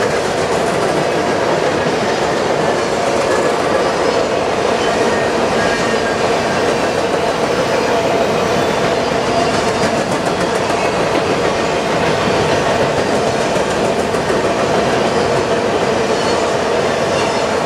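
Covered hopper cars of a freight train rolling past: a steady rolling noise of steel wheels on rail, with some wheel clicking.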